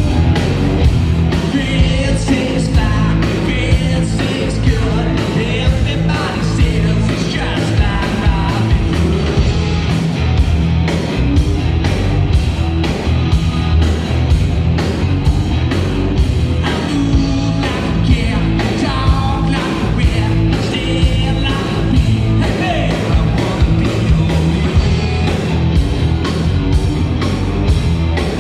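Live rock band playing loud: electric guitars, bass guitar and a drum kit with a steady beat, with a singer's voice over the top.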